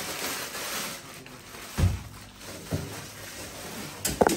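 Two dull thumps and then a quick clatter of knocks near the end, as household items are handled and set down.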